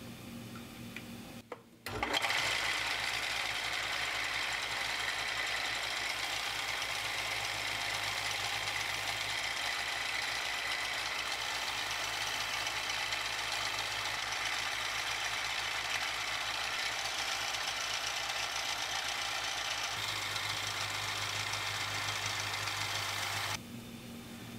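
Benchtop belt sander running steadily while the edge of a leather axe sheath is sanded against its belt. It starts suddenly about two seconds in and cuts off about a second before the end.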